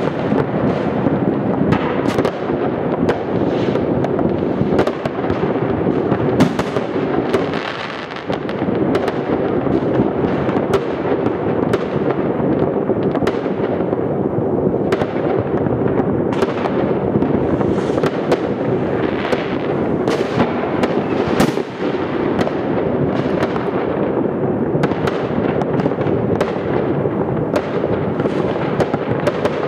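Many fireworks going off at once: a continuous wash of overlapping bangs and crackling from rockets and firecrackers, with many sharper single bangs standing out from it.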